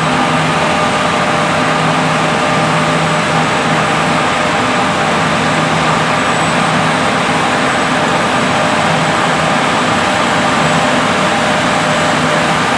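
Large diesel farm machinery running steadily in the field: an unbroken engine drone with a constant hum over mechanical noise.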